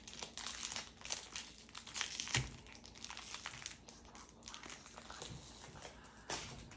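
Foil Pokémon booster-pack wrapper crinkling and tearing as it is ripped open by hand, a run of short sharp crackles.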